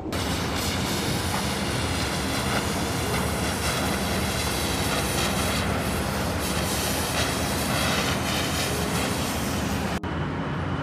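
Steel cutting on bridge truss wreckage: a steady, harsh hiss like a cutting torch, over a low machinery hum. It cuts off abruptly near the end, giving way to a quieter background.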